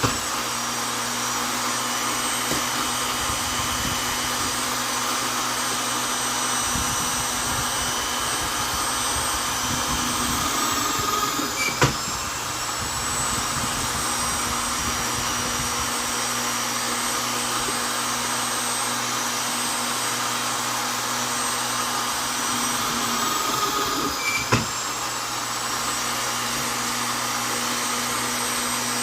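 Vonder electric drill running at steady speed, a continuous motor whine. Twice, about twelve seconds apart, the pitch sags briefly and a sharp click follows.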